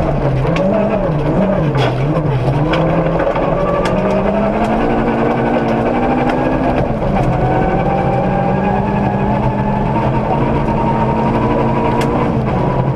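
Ford Ka rally car's engine heard from inside the cabin at speed on gravel: the revs rise and fall quickly for the first few seconds, then climb steadily, break briefly about seven seconds in as a gear changes, and drop near the end. Sharp clicks of gravel hit the underbody throughout.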